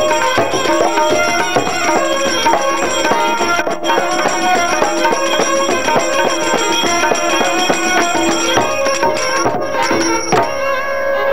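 Violin playing an instrumental kirtan shaan in Raag Basant, with tabla strokes keeping the rhythm. Near the end the drumming stops and the violin carries on alone.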